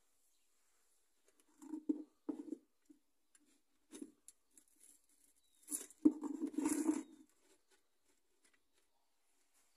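Fingers rubbing and pushing loose model gravel scatter along a diorama baseboard: gritty scratching in a few short bursts, the longest and loudest about six to seven seconds in.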